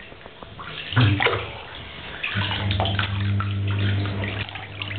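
Water splashing and dripping in a bathtub as a pug puppy is washed by hand. A steady low hum comes in about halfway through.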